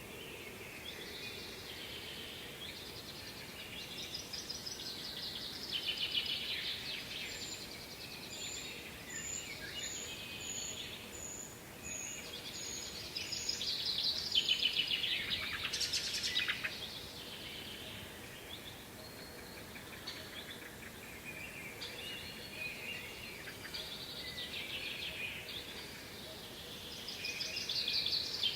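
Songbirds singing in overlapping phrases over a steady faint hiss, with a run of about ten short, high, thin notes in the middle.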